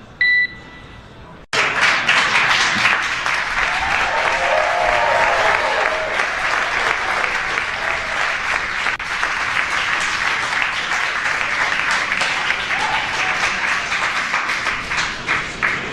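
A short radio beep, then about a second and a half in a crowd bursts into loud, sustained applause and cheering, with a few shouts rising above it. The cheering greets the Dragon capsule's automated parachute deployment during descent.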